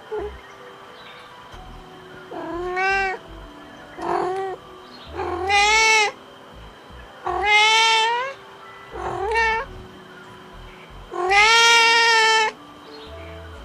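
Domestic cat meowing six times, drawn-out meows that rise and fall in pitch, a second or two apart, the last one the longest and loudest. Played as a sound effect to catch a cat's attention.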